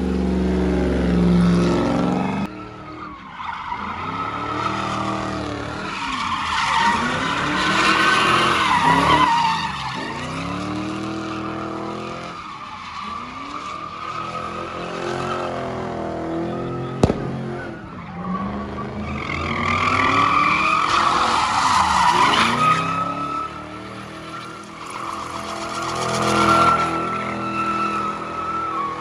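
Car engine revving hard up and down again and again while the spinning tyres squeal steadily, as in a burnout. There is one sharp crack past the middle.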